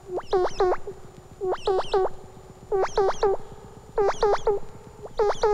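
Electronic signal from a cartoon handheld radio tracking receiver: short synthesized rising chirps in quick groups of two or three, repeating about every 1.2 seconds.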